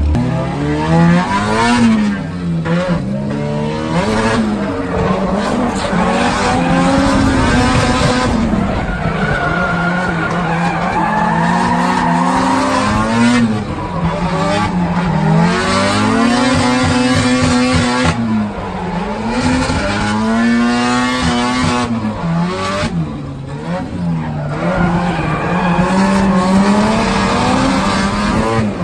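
Drift car engine heard from inside the cabin, revving up and down over and over through the corners, sometimes held high for a second or two, with tyres squealing as the car slides.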